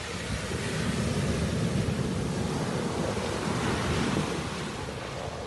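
Small waves breaking and washing up on a sandy beach, the surf swelling over the first couple of seconds and easing near the end, with wind rumbling on the microphone.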